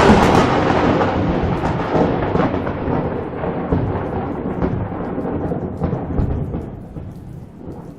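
A sudden loud rumble that starts just before and decays slowly, fading out near the end.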